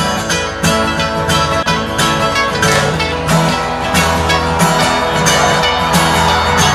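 Background music led by plucked guitar, with a steady beat.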